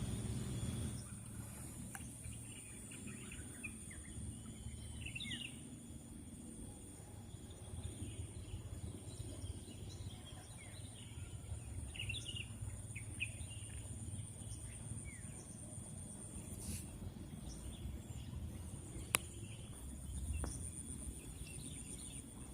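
Outdoor ambience: scattered short bird chirps over a steady high-pitched insect drone that turns pulsing near the end, with a low rumble of wind or handling noise underneath.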